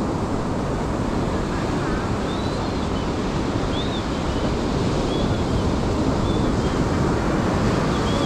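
Surf washing on the beach under steady wind buffeting the microphone, with a few faint short high chirps scattered through.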